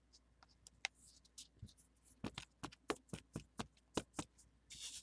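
Quiet handling of Pokémon trading cards and plastic card sleeves. A few light clicks, then a quick run of taps and clicks about two seconds in, four or five a second, and a short rustling swish near the end.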